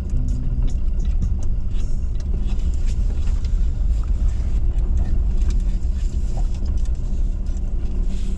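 Car cabin noise while driving: a steady low engine and road rumble, with scattered small clicks and rattles.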